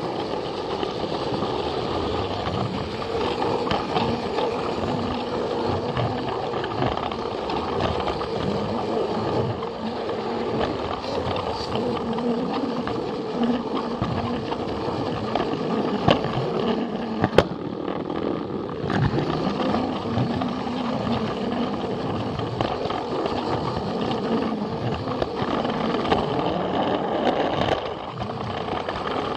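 Battery-powered Plarail toy train running on plastic track: a steady motor whir and wheel rumble with scattered clicks, a few sharp ones about halfway through.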